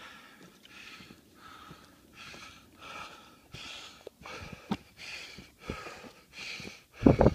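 Heavy, rhythmic panting close to the microphone: a hiker out of breath from climbing steeply uphill, a breath about every 0.7 s. A few thumps come through, the loudest one near the end.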